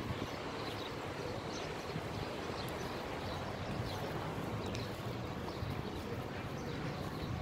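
Steady outdoor street noise picked up on a phone while walking: a low, even rumble with a few faint ticks.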